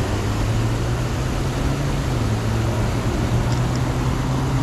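A steady low hum over an even rushing hiss, unchanging throughout.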